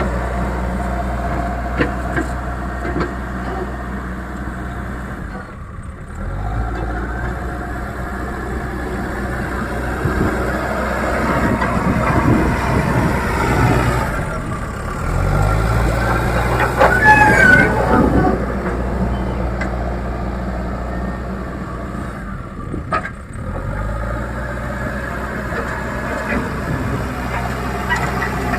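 Diesel engine of a Leyland Deere 435 backhoe loader running at working speed, its pitch dipping and picking up again three times as the load changes, with a brief high squeak about two thirds of the way through.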